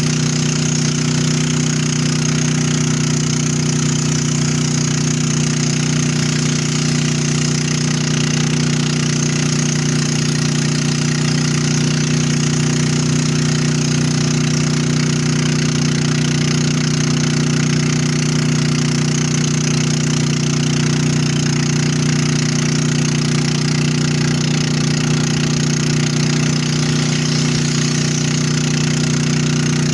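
Motorboat engine running steadily at cruising speed, a constant low drone with a steady rushing hiss above it.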